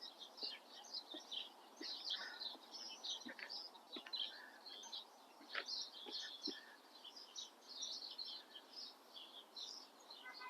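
Faint chorus of small songbirds chirping and twittering: many short, high chirps overlapping throughout.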